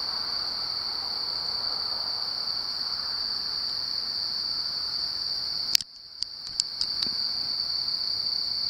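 Crickets chirring in one steady, continuous high-pitched trill. About six seconds in, a sharp click cuts in, then a few fainter clicks.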